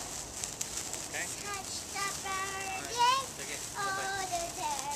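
A person's voice vocalizing without words in a run of drawn-out, wavering notes, the loudest and highest about three seconds in, over a steady high hiss.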